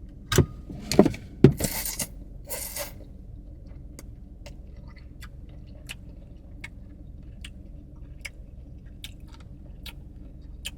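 Loud open-mouthed chewing, deliberately noisy: a few loud bursts of mouth noise in the first three seconds, then a soft, wet lip smack about every 0.7 s.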